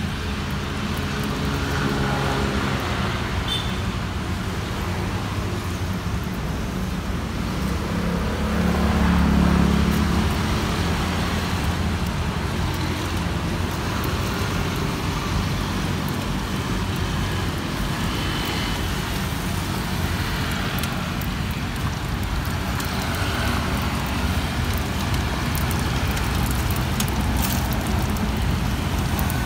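Road traffic going by: a steady rumble of passing engines, with one vehicle passing louder about eight to ten seconds in.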